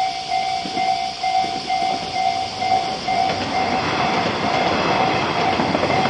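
Level-crossing warning bell ringing in a steady repeat, about two strokes a second. A diesel railcar approaches and runs through the crossing, its rumble and wheel clatter building from about halfway in.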